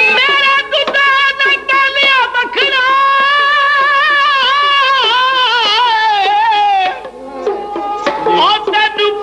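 Dhadi folk music with sarangi and dhadd drum: a long, wavering melody line held for several seconds over drum strokes. It breaks off briefly about seven seconds in and then resumes.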